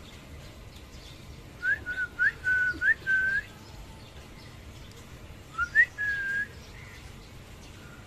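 Clear whistled notes: a quick run of four short rising whistles ending in a longer level note, then after a pause two more rising whistles and another held note.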